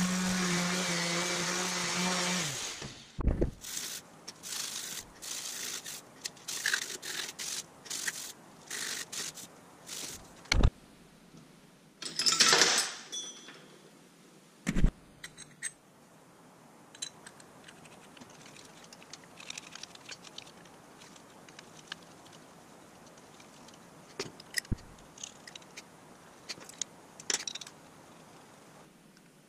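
DeWalt random orbital sander running steadily, stopping about two and a half seconds in. Then irregular clinks and knocks of metal parts and tools being handled at a bench vise, with one louder burst of noise near the middle and lighter clicks towards the end.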